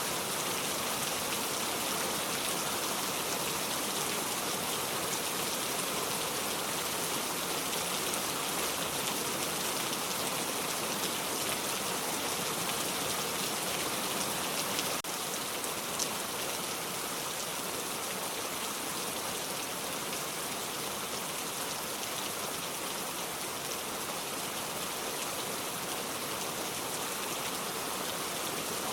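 Heavy rain falling steadily, a dense even hiss. About halfway through there is a faint click, after which the rain runs slightly quieter, with a single small tap a second later.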